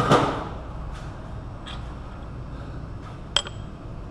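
Loose steel bolts clattering briefly at the start, then single sharp metallic clinks about a second in, again shortly after, and once more past three seconds.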